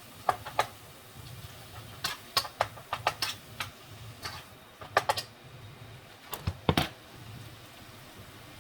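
Scattered sharp clicks and knocks of a utensil against a pan, some in quick clusters of two or three, over a low steady hum.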